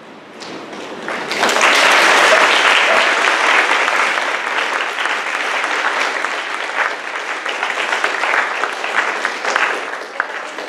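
A room full of people applauding, the clapping swelling quickly about a second in and slowly thinning out near the end.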